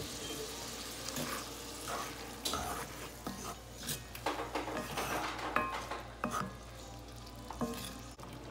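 Wooden spoon stirring and scraping French-style green beans around a cast iron skillet, with scattered knocks of the spoon against the pan over a light, steady sizzle of the beans frying.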